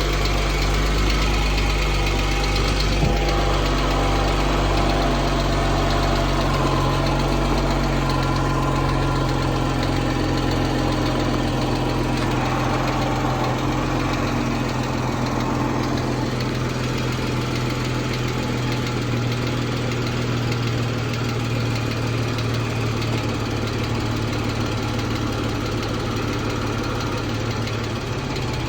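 2014 Jeep Wrangler's 3.6 Pentastar V6 idling steadily with a ticking noise, which the owner suspects is a rocker arm or valve tick.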